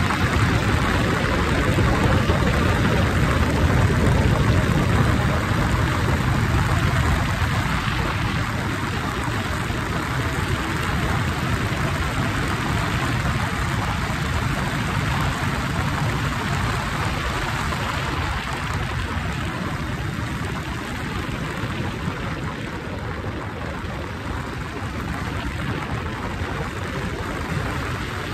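Motorcycle riding at road speed: a steady engine drone under heavy wind rush on the microphone, a little louder in the first several seconds and easing off slightly after.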